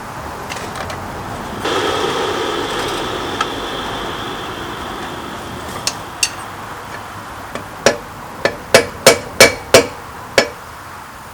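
Blacksmith's hammer striking the spanner on an anvil: about seven sharp, ringing blows in quick succession near the end, after two lighter taps. Earlier a steady rushing noise starts suddenly about two seconds in and slowly fades.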